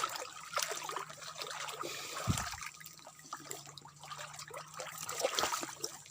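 Water trickling and splashing in a small stream, with many small irregular splashes and a dull thump about two seconds in.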